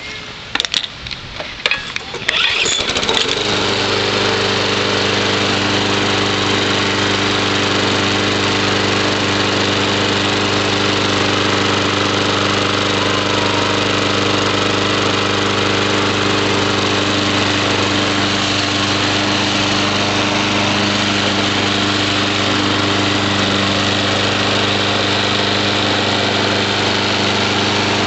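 Yard Machines walk-behind mulching lawn mower being started: a few sharp knocks in the first two seconds, then the small engine catches about three seconds in and runs steadily at a constant speed.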